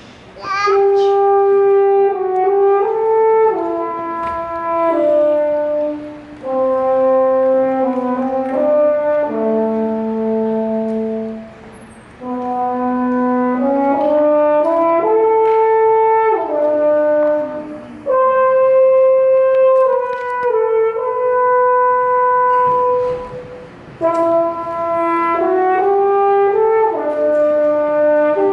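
Solo French horn playing a melody of held notes, one note at a time, in phrases of several seconds with short pauses between them.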